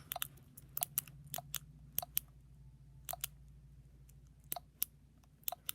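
A small hand-held fidget toy being worked, giving a string of sharp, irregularly spaced clicks, about a dozen.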